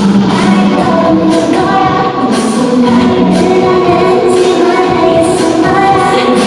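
Live band music with a singer's voice, a steady loud song.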